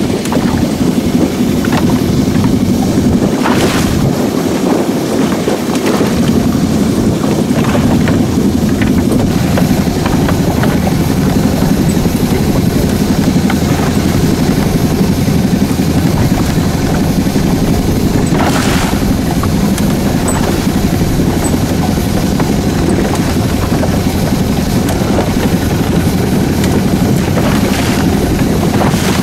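Small fishing boat's engine running steadily at low speed on a rough sea, with wind buffeting the microphone. Water slaps against the hull a couple of times.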